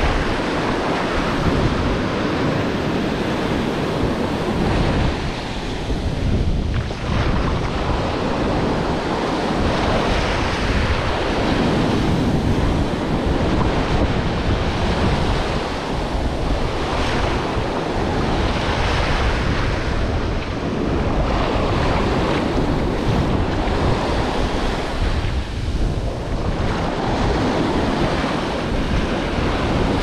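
Atlantic surf breaking and foaming up the beach close by, a continuous wash that swells and eases every few seconds. Wind buffets the microphone underneath.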